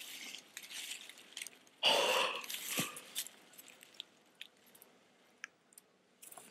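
Dry grass and fallen leaves crackling and rustling as the deer carcass is handled and boots shift in the brush, with scattered small snaps. A louder breathy rush about two seconds in.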